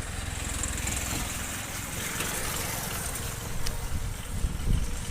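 Road traffic: a motor vehicle's engine passing close, its hiss swelling about two seconds in, over a steady low rumble.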